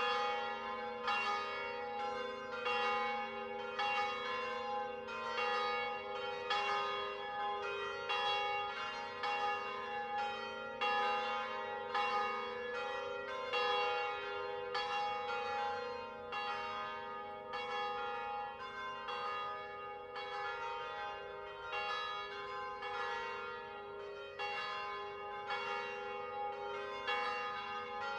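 Several large church bells cast by De Poli, swung and rung together in an Italian distesa peal. The strokes come about once a second, and the tones overlap and hum on between them.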